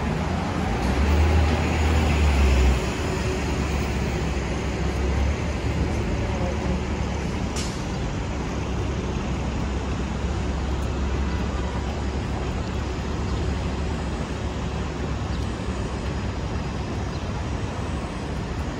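Steady city street traffic noise, with a low engine rumble that is louder for the first few seconds. A brief high hiss comes about eight seconds in.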